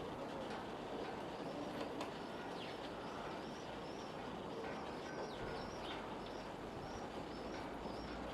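Steady rushing outdoor background noise with small birds chirping repeatedly over it in short, high, arching notes.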